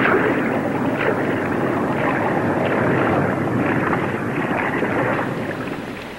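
Steady rushing, rumbling noise of an approaching Coast Guard cutter's engines heard underwater, fading about five seconds in.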